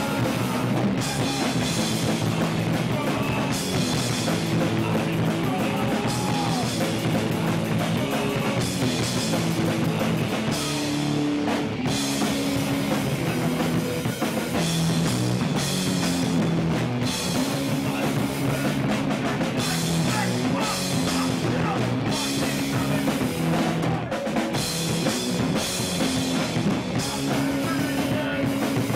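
Hardcore punk band playing live: electric guitar, drum kit with crashing cymbals, and shouted vocals, steady and loud throughout.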